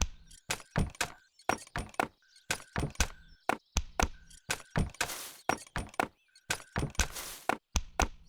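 Cartoon percussion beat tapped out on a clicking, knocking leg brace, joined by other improvised knocks: quick clicks and knocks at about three or four a second, with two longer hiss-like swishes about five and seven seconds in.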